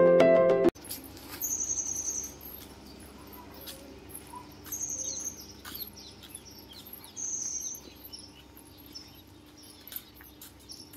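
Background music cuts off less than a second in. A bird then gives a short, high trilled call three times, about three seconds apart, over quiet outdoor ambience with scattered faint clicks.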